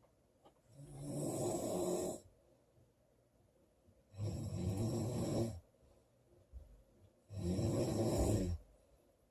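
A girl snoring loudly in her sleep: three snores about three seconds apart, each lasting over a second, with quiet breathing pauses between.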